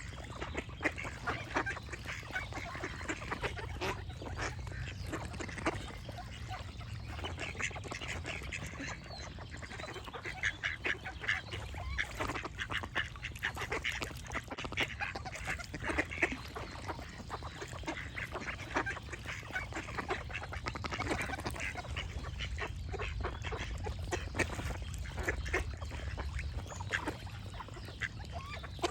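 Ducks quacking: many rapid, overlapping calls that go on throughout, over a steady low background rumble.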